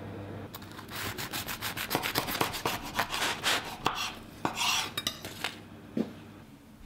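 A knife sawing back and forth through the baked crust of a matcha and adzuki bean twist loaf, a quick run of crunchy rasping strokes. A single knock about six seconds in.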